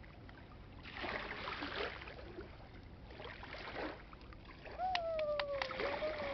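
Small waves washing and splashing up onto a muddy river bank in surges about every two seconds. About five seconds in, a drawn-out tone that falls slightly sounds for about two seconds, with a few sharp clicks.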